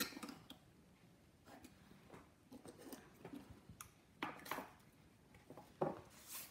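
Faint scratching of a pencil tracing around a pine cone on paper, then light knocks and rustles as the pine cone is lifted off the paper and set down on the table.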